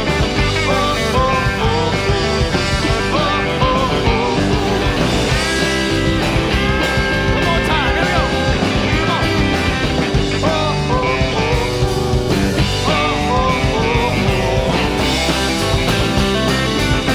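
Live rock band playing a song, with guitar among the instruments and no words sung.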